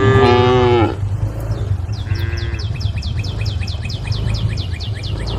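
A cow mooing loudly at the start, then a shorter, fainter moo about two seconds in. A bird calls in a rapid, even series of short high chirps, about seven a second, through the second half.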